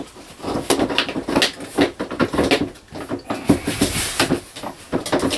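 Flimsy shower-stall wall panels being pushed and slid into their rail by hand: a run of irregular knocks, clicks and rattles from the thin panels.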